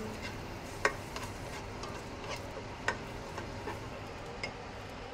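Spatula stirring onions in a metal pot, knocking against the pot a few times over a faint sizzle of onions sautéing in oil.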